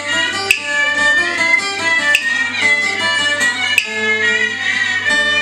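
An acoustic guitar strums chords about every second and a half under a Vietnamese two-string fiddle (đàn nhị) playing a bowed melody that slides between notes.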